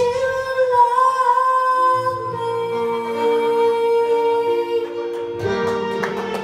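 A woman holding a long sung note, amplified through a handheld microphone, over a pop backing track; the backing track carries on with plucked guitar notes near the end.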